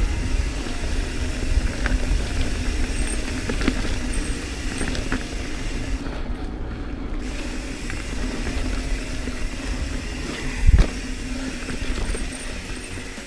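Mountain bike rolling fast down a leaf-strewn dirt trail: steady tyre and wind noise with rattles and knocks from the bike over the rough ground, and one heavy thump about eleven seconds in.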